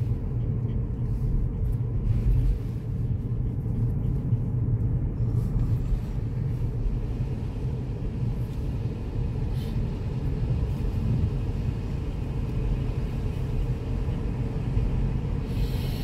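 Car driving along a road, heard from inside the cabin as a steady low rumble.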